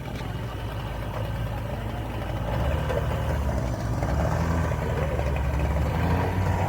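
Motorboat engine running steadily with a low drone, growing louder about two and a half seconds in.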